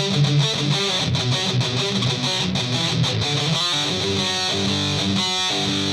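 A 1980s Synsonics Les Paul copy on its bridge pickup, played through a Joyo Extreme Metal distortion pedal into a Marshall Origin 50 head at high gain. It plays a heavily distorted riff of fast, chugging short notes, and from a little past halfway it moves to longer notes left to ring and sustain.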